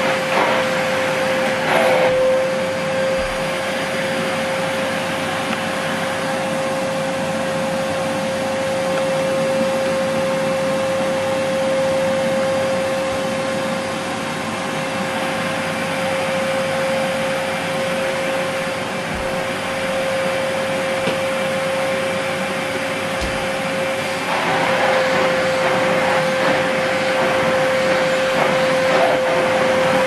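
Hoover Whirlwind bagless cylinder vacuum cleaner running, with a steady motor whine over the rush of air. Near the end the sound grows rougher and a little louder as the floor head is pushed over the carpet.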